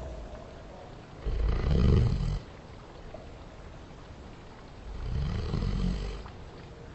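A person snoring, slowed down and drenched in reverb so each snore sounds deep and drawn out. Two snores, a loud one of about a second starting about a second in and a softer one about five seconds in.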